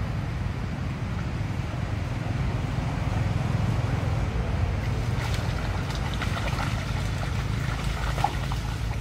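Steady low rumble of wind buffeting the microphone, with a scatter of light clicks and small splashes in the second half as monkeys move about in shallow muddy water.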